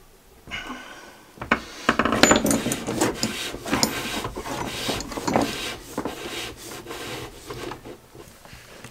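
Gloved hands handling cables and a plastic MPPT solar charge controller on a wooden floor: irregular rubbing and scraping with many small clicks, starting about half a second in.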